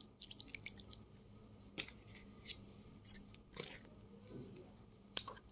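A steel spoon stirring thick pakora batter in a steel bowl: faint wet squelching with scattered light scrapes and clicks of the spoon against the bowl.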